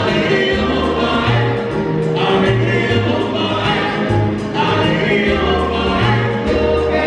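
Live salsa band playing, with a chorus of several male voices singing phrases together over walking upright bass, piano and percussion.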